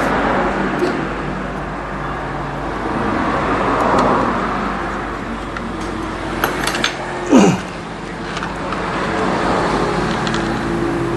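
Steady background motor-vehicle noise, like road traffic, with a few sharp clicks a little past halfway and a brief falling tone just after them.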